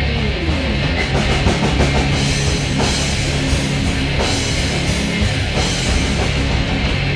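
Rock band jamming: electric guitar over bass and a drum kit, loud and steady, with a falling run of notes near the start.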